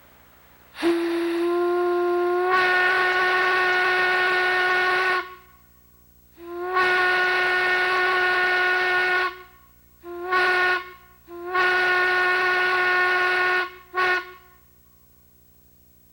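A plain Crosby steam whistle blown on compressed air, sounding one steady note in five blasts: two long, a short one, another long one and a short one at the end. The first blast slides up slightly as the valve opens before it settles into the full tone.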